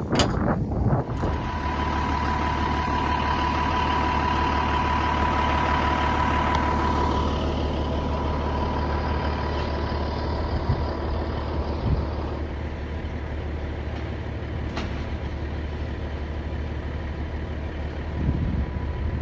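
A large vehicle engine running steadily, with a high steady whine that is strongest for the first few seconds and then fades.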